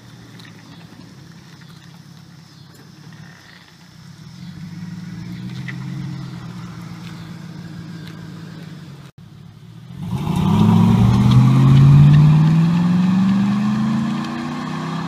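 2000 Chevy Silverado 1500's 5.3 L V8 running through a Flowmaster 40 series muffler, with the exhaust ending before the rear axle, as the truck drives slowly past. After a break about nine seconds in, it accelerates hard in one long pull, the engine note rising steadily in pitch; this is the loudest part. It eases off just at the end.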